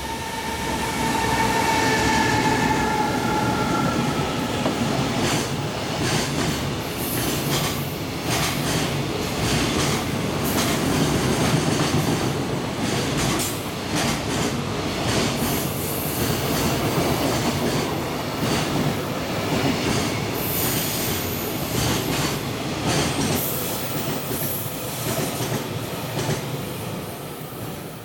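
A JR Freight container train passing close by. The electric locomotive's motor whine sinks slightly in pitch over the first few seconds. Then a long run of container wagons clatters over the rail joints with intermittent high wheel squeal, fading out near the end.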